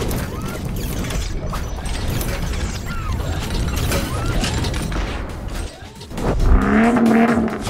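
Sound-effect track of an animated car intro: quick mechanical clicks and ratcheting, gear-like sounds, then a louder pitched drone lasting about a second near the end.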